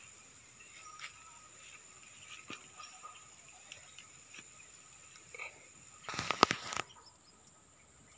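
Insects keep up a steady high-pitched whine, with a few faint ticks. About six seconds in comes a brief, louder rustling noise lasting under a second.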